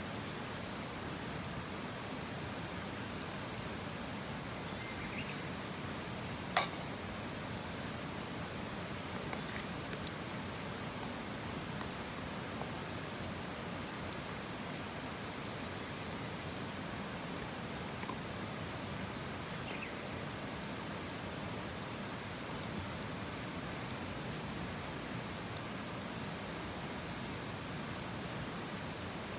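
Wood campfire burning with a steady hiss and scattered faint crackles, and one sharp loud pop about six and a half seconds in.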